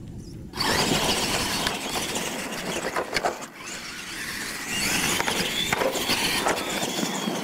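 Two radio-controlled monster trucks launching off the start and racing across dirt. A high whine of motors and gears mixes with the noise of tyres, starting about half a second in.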